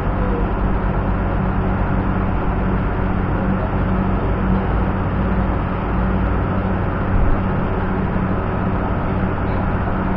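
Steady, loud drone of running machinery, an engine-like noise with a constant low hum under it.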